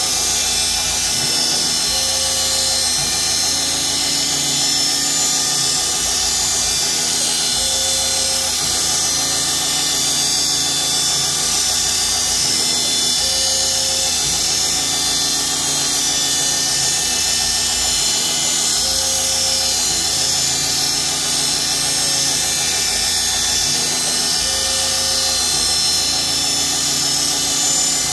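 CNC mill engraving a chequering pattern into wood: the spindle whines steadily at high speed while the axis motors drive the engraving tool back and forth, a pattern that repeats about every five and a half seconds.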